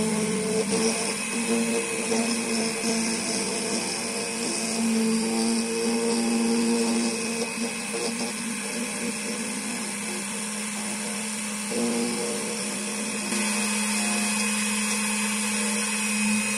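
Electronic key-cutting machine milling the blade of a Fiat car key: the small cutter spins steadily with a motor hum, its tone wavering as it bites into the metal, and steps up slightly louder about thirteen seconds in.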